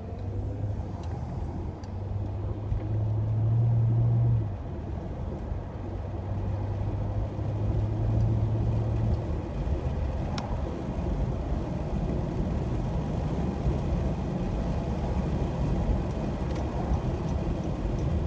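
Car driving, heard from inside the cabin: a low engine hum that is loudest about three to four seconds in and fades after about nine seconds, over steady road rumble.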